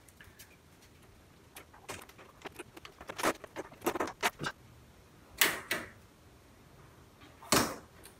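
Clicks, knocks and clatter of a disassembled LED TV's panel parts being handled, as a long thin edge strip is lifted off the frame and set down. Separate sharp knocks, the loudest about five and a half and seven and a half seconds in.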